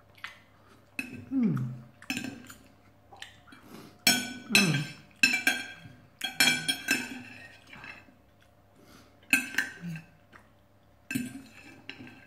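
Metal knife and fork clinking and scraping on a ceramic plate in irregular bursts as food is cut up and picked off it, each clink ringing briefly. A couple of short falling vocal hums from the eater come through, about a second in and again about four and a half seconds in.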